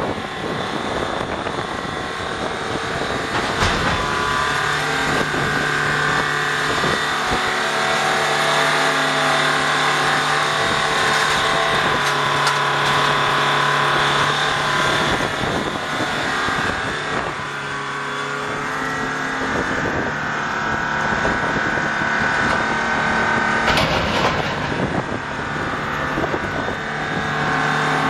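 Detroit Diesel four-cylinder diesel engine of a Bantam C451 excavator running steadily, its tone shifting now and then as the hydraulics work the boom and magnet. A couple of sharp knocks, about four seconds in and near the end.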